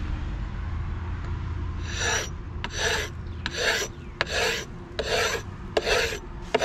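Hand paint scraper pulled across a sailboat's fibreglass hull, rasping off the old blue antifouling bottom paint in six strokes a little under a second apart, starting about two seconds in.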